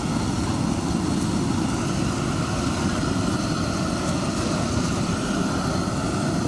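Hand-held LPG gas torch, fed by hose from a small gas cylinder, burning with a steady low rushing noise as its flame singes the hair off a slaughtered pig's carcass.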